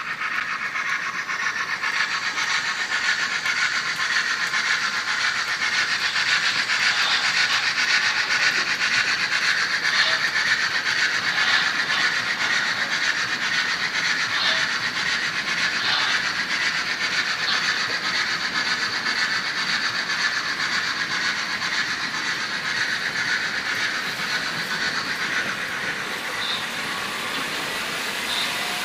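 Märklin H0 model trains running on the layout's track: a steady rolling whir of small wheels and motors with a few faint clicks. It swells through the middle and eases off near the end.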